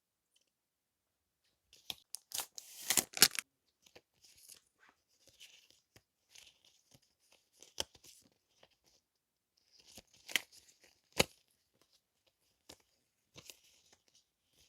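Paper or plastic packaging being torn open in a quick burst of rasping strips, then rustled and handled softly, with a few sharp clicks.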